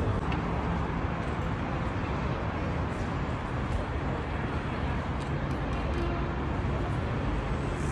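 Steady low vehicle rumble and outdoor street noise.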